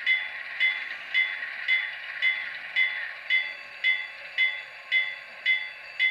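Locomotive bell from the ESU sound decoder in an HO-scale Atlas model locomotive, ringing steadily at about two strikes a second over a steady background hum.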